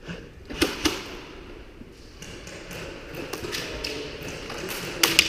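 Sharp cracks of airsoft gunfire: two about a quarter-second apart about half a second in, then two more in quick succession near the end, with faint clicks and knocks in between.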